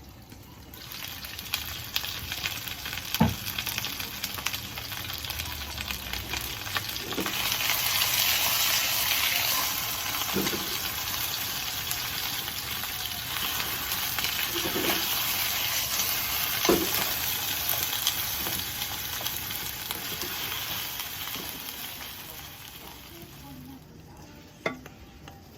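Chicken and lotus root sizzling in a frying pan as they are stir-fried, with a few knocks of the utensil against the pan. The sizzle swells partway through and dies down near the end.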